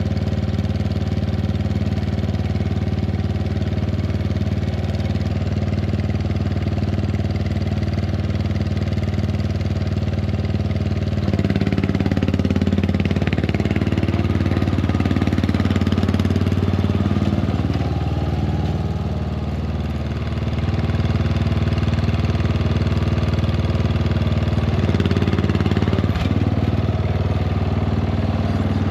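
Ride-on lawn mower's engine running steadily, growing louder about eleven seconds in as the mower drives off towing a trailer, with a brief drop in revs around twenty seconds.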